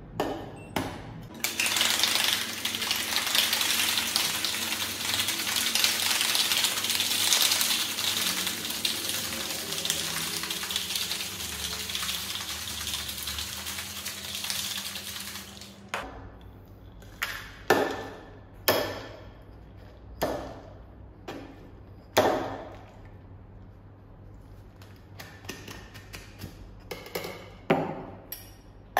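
Ice rattling hard in a metal Boston cocktail shaker for about fourteen seconds. The shaking stops, followed by a string of separate metallic clinks and knocks as the tins are handled.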